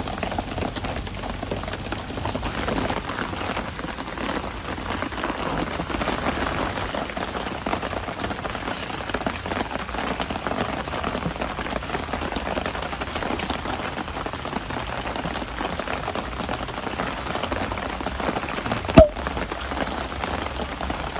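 Pouring rain falling steadily, with one sharp click near the end.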